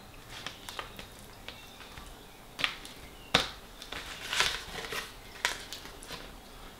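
Metal fork scraping and tapping against an aluminium foil tray while cutting into a pie, with a handful of sharp clicks and scrapes spread through.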